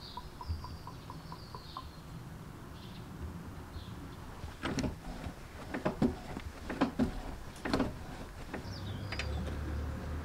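Clutch pedal of a classic Alfa Romeo Giulia Super being pumped by foot to bleed the hydraulic clutch. Its pedal and linkage give a series of sharp knocks, some in pairs, about once a second between roughly four and eight seconds in. Birds chirp faintly near the start and again near the end, and a light ticking about four times a second runs through the first two seconds.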